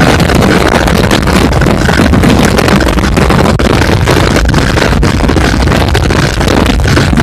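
Honda CBF125's single-cylinder four-stroke engine running steadily at high revs near its top speed of about 120 km/h, mixed with loud wind rushing over the microphone.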